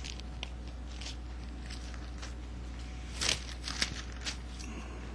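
Bible pages being turned: a scattering of short, soft paper rustles, with a louder flurry a little past the middle, over a steady low hum.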